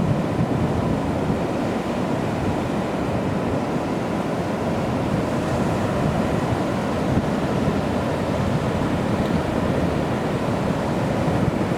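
Atlantic surf washing steadily onto the beach, with wind rumbling on the microphone.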